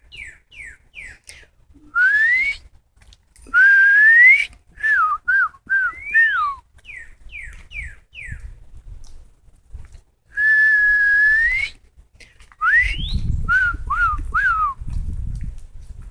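A person whistling back and forth with a songbird. The bird gives runs of short, falling notes, and these are answered by longer, louder whistles that glide upward in pitch, about 2, 4, 10 and 13 seconds in.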